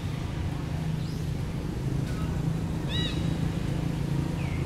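Monkeys in a macaque troop giving short, high-pitched arching calls, three in all: about a second in, around three seconds and near the end. A steady low hum runs underneath.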